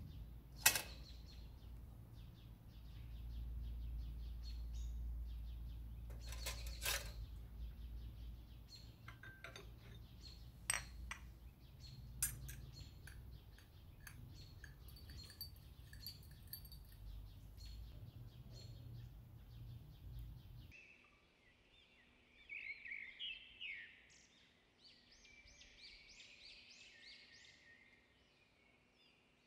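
Tea glasses, a glass saucer and a metal teaspoon clinking in several sharp clicks over a low rumble. About two-thirds of the way through, the rumble and clinks cut off and small birds are heard chirping and calling in quick clusters.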